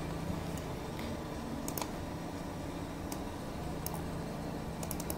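Clicks from a computer keyboard and mouse: single clicks about once a second, then a quick run of several near the end, over a low steady hum.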